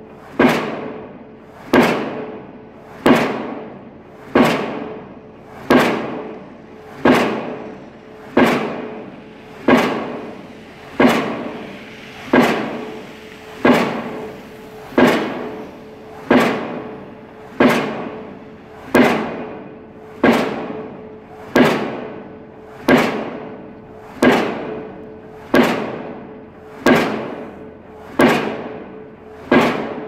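Diesel impact pile hammer driving a steel H-pile: a steady, even series of heavy metallic blows, about one every 1.3 seconds, each ringing out before the next.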